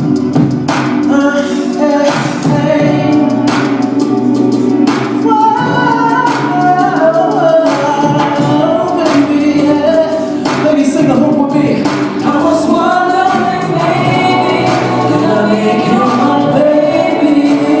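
Singing over music: sustained, melismatic vocal lines with a steady backing throughout.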